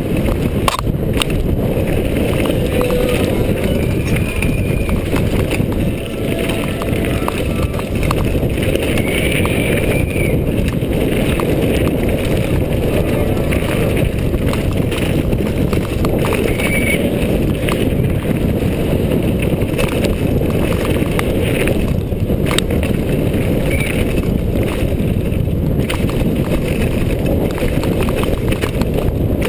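Hardtail downhill mountain bike ridden fast over gravel and dirt: a steady rumble of tyres on loose ground, with constant rattling and knocking from the bike over the bumps.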